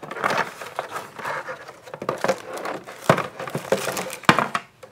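Clear plastic blister packaging being pried apart and handled, crinkling irregularly with a few sharp plastic snaps, the loudest about three and four seconds in.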